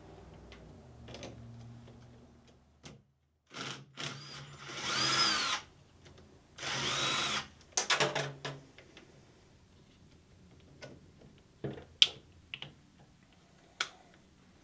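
Cordless drill/driver running in two short bursts, each spinning up and winding back down, as it works fasteners loose on the battery pack. Several sharp metallic clicks follow; the loudest is about three-quarters of the way through.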